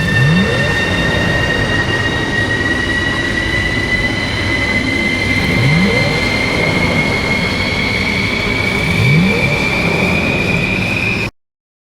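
Designed Batmobile startup sound effect, layered from engine, jet and rocket recordings: a jet-like whine rising slowly in pitch over a dense, steady rumble, with three brief low upward sweeps. It cuts off suddenly about eleven seconds in.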